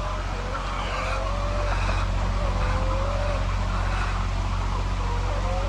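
A motor running with a steady low hum, with thin wavering squeal-like tones drifting over it.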